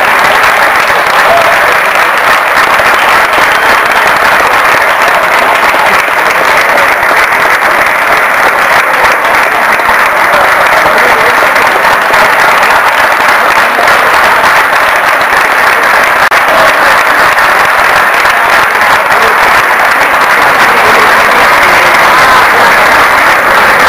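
Crowd applauding, a steady, loud, unbroken mass of clapping.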